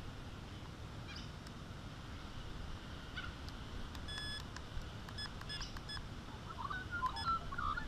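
Steady wind rumble on the microphone. Short electronic beeps come in a few clusters from about halfway in, and birds chirp near the end.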